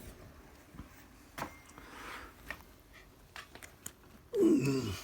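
A few faint clicks and taps, then near the end a short, loud vocal sound from a person, falling in pitch.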